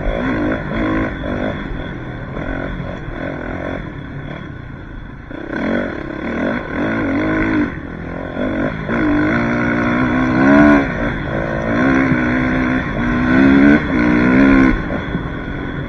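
Suzuki RM-Z450 dirt bike's four-stroke single-cylinder engine being ridden, the throttle opened and closed again and again so the pitch climbs and drops several times. It eases off about four seconds in, and the loudest revs come in the second half.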